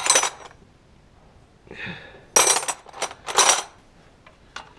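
Metal spanners clinking and clattering against each other in a plastic toolbox as a hand rummages through them, in three separate clatters, with a few light clicks near the end.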